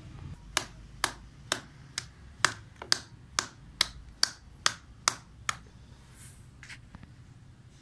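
A knife chopping raw fish into pieces on a sheet laid over hard ground: about a dozen sharp chops, roughly two a second, that stop about two-thirds of the way through.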